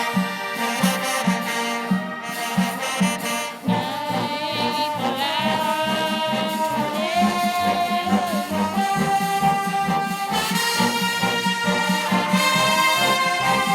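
Marching band playing: brass horns carrying a melody over a steady drum beat, shifting into a new passage about four seconds in.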